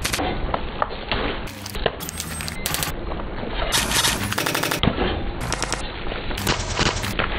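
Car tyre rolling slowly over a row of plastic drink pouches, bursting them one after another in a rapid, irregular run of pops and crackles, over the low steady running of the car's engine.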